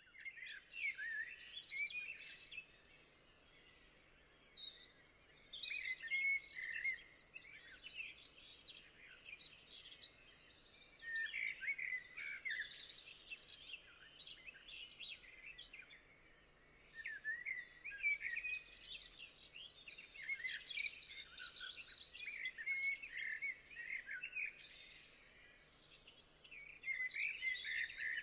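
Small songbirds chirping and twittering in repeated bouts of a few seconds each, with short lulls between.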